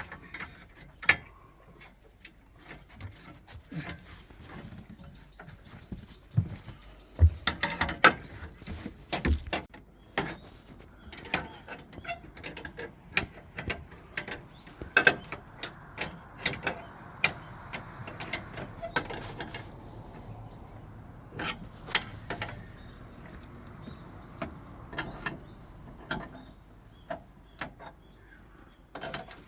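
Irregular clicks, knocks and clatter of hand work on metal rod mounts and fittings, with a busier run of louder knocks about a quarter of the way in.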